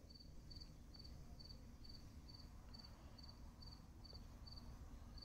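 Faint cricket chirping: short high chirps repeating evenly, about two a second, over a low background hum.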